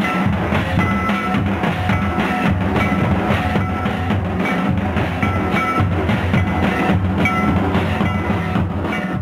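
Santali drum ensemble playing a fast, unbroken traditional rhythm on large bowl-shaped tamak' kettledrums and a double-headed tumdak' barrel drum.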